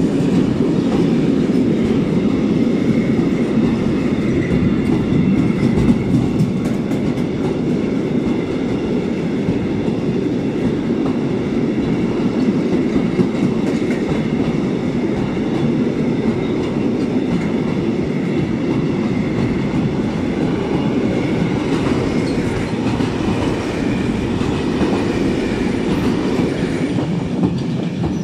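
Freight train of covered sliding-wall wagons rolling past close by: a steady, loud rumble of wheels on rail with faint high wheel squeal on top. The wagons are running over track that the uploader calls deformed.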